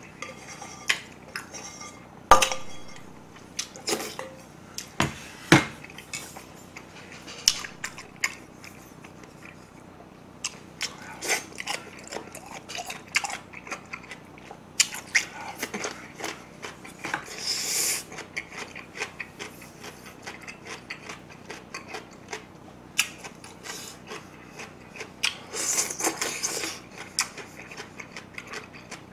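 A metal spoon clinking and scraping against a stainless steel bowl, with sharp clinks early on, then chopsticks tapping a bowl and close-miked chewing of crunchy dongchimi radish in crackly bursts.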